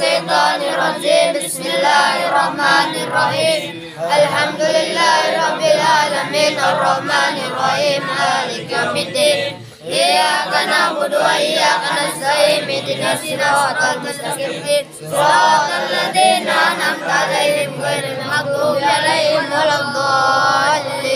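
A group of men and boys chanting an Islamic devotional recitation together in unison, with short breaths between phrases about 4, 10 and 15 seconds in.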